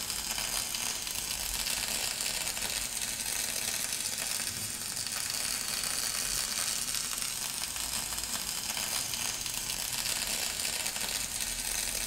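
Simulated MIG welding arc from a Soldamatic augmented-reality welding trainer: a steady, crackling sizzle held evenly while the torch travels along the joint.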